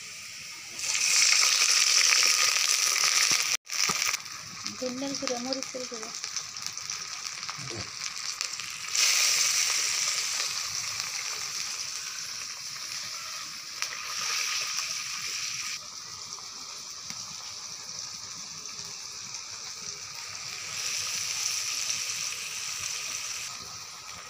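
Onions frying in hot oil in a wok over a wood-and-leaf fire: a steady sizzle that swells loudly several times, near the start and again about nine, fourteen and twenty-one seconds in.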